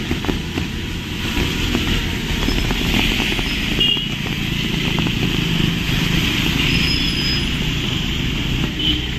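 Road traffic: motor vehicles running in a steady low rumble.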